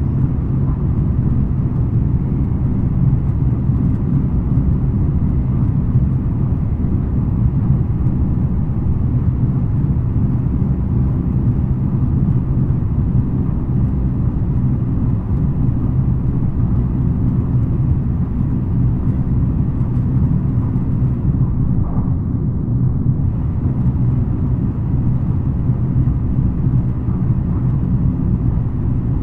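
Steady running noise inside a JR West N700 series 5000 (N700A) Shinkansen car at speed: a loud, even low rumble of wheels on rail and the moving train, with the upper hiss briefly thinning about 21 seconds in.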